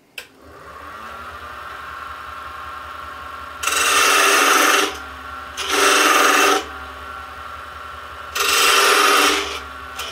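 Wood lathe motor spins up and then runs with a steady hum. A steel parting tool is pushed into the spinning wood spindle three times, each a loud scraping cut of about a second, with a fourth cut starting right at the end.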